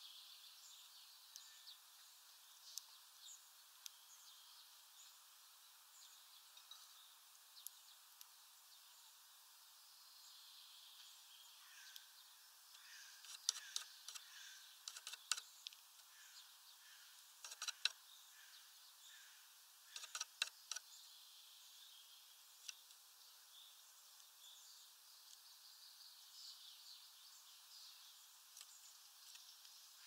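Faint outdoor background with scattered distant bird chirps. In the middle come several quick clusters of sharp clicks and taps, the loudest sounds here.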